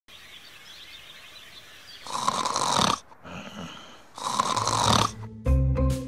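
A person snoring loudly, two long snores just under a second each with a quieter breath between them. Music with a deep bass comes in near the end.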